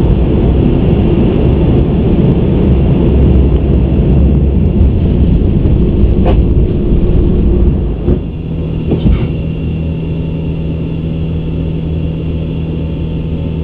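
Airbus A350 flight deck in the initial climb: a loud, steady low rumble of airflow and engines. About eight seconds in, after a couple of knocks, the rumble drops sharply and a steady low hum is left, as the landing gear finishes retracting and its doors close.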